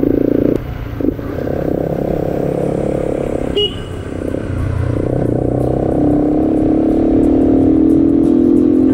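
Sport motorcycle engine heard from the rider's seat. It eases off about half a second in, runs steadily with a short click about halfway, then the engine note rises over the last few seconds as the bike accelerates.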